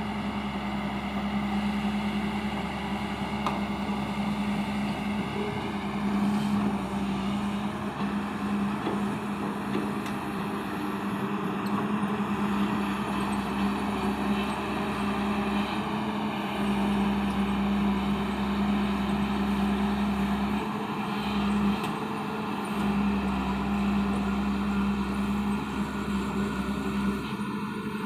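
Excavator's diesel engine running steadily with a constant drone while the machine works its way onto a ramp.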